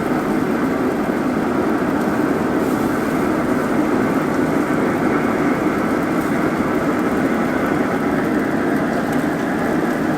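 Recteq RT-B380 Bullseye pellet grill running, a steady rushing of its fan-fed fire.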